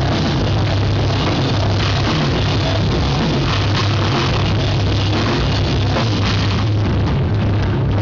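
A rock band playing live and loud, drum kit and cymbals over a heavy, steady bass, with no break.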